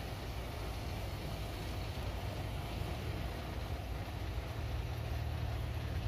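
Heavy diesel engine running steadily, a low rumble with no change in pitch.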